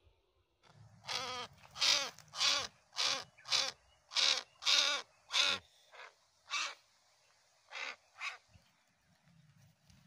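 A netted coucal (bubut loreng macan), held in the hand, calling about a dozen times in short squawks, roughly two a second, thinning out and stopping about eight seconds in: the distress calls of a handled bird.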